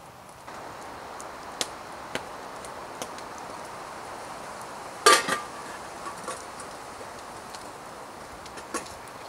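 Metal dog bowl clanking once as it is picked up off the ground, with a short metallic ring, about five seconds in. A few light clicks and taps come before it.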